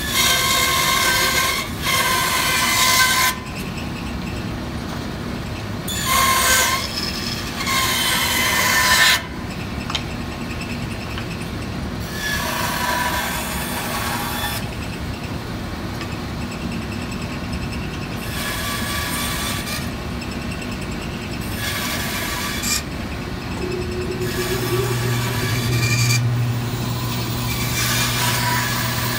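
Bandsaw running with a steady motor hum while its blade cuts through a wooden block in a series of passes; the cutting noise swells in separate spells of one to three seconds, loudest in the first nine seconds and softer after. A low steady hum joins about three quarters of the way through.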